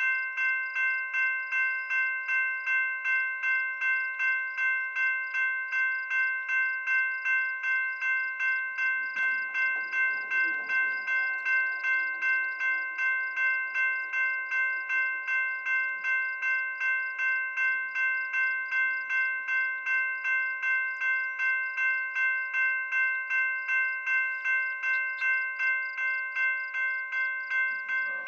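Railway level-crossing bell ringing in steady, even strokes, about two and a half a second: the crossing signals are activated for an approaching train.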